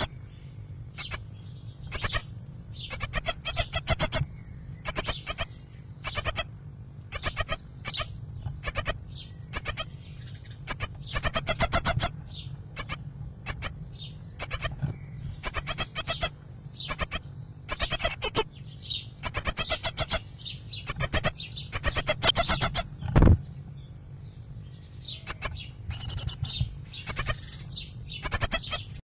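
Great tit nestlings begging in a nest box: repeated bursts of rapid, high-pitched calls, each lasting up to about a second, over a steady low hum. A single low knock comes about two-thirds of the way through.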